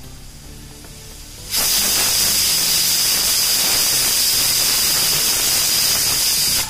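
Pressure cooker whistle blowing: a loud rush of escaping steam with a high steady whistling tone. It starts suddenly about a second and a half in and cuts off abruptly near the end. This is the cooker's third whistle, the signal that the dal is cooked and the stove can be turned off.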